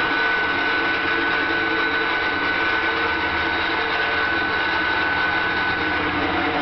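Drive mechanism of a cobalt-60 gamma irradiator running steadily as it lowers the sample holder down into the shielded irradiation chamber: a steady high whine over a loud hiss, with a few lower hums.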